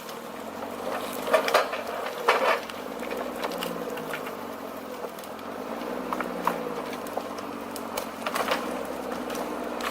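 A heavy machine's engine running steadily, with clanks and knocks a few times, loudest near the start and again near the end.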